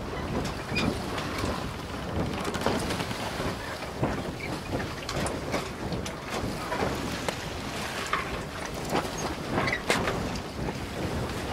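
Steady rushing wind and water noise with many small clicks and knocks scattered through it, like the ambient sound aboard a boat.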